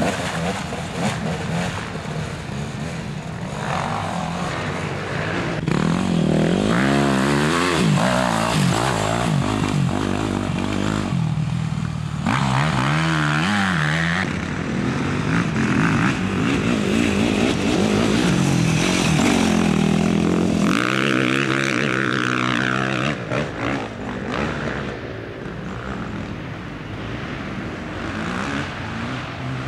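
Off-road dirt bike engines revving up and down as riders pass one after another, the pitch climbing and dropping repeatedly with throttle and gear changes. The passes come and go, loudest in the middle of the stretch.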